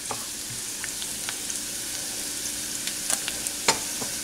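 Chopped garlic sizzling steadily in hot oil in a nonstick pan, with a few short knocks and scrapes from a wooden spatula stirring it.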